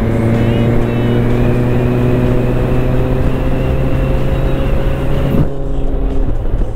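Motorcycle engine running steadily at cruising speed under heavy wind rush on the microphone. About five seconds in the wind noise drops away suddenly, leaving the engine hum clearer.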